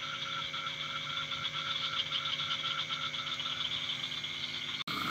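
Frogs calling in a chorus, a fast and even pulsing that keeps on throughout, broken by a momentary dropout near the end.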